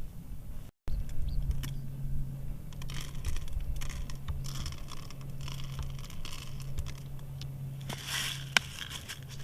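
Intermittent scraping and scratching with a sharp click near the end, over a steady low hum.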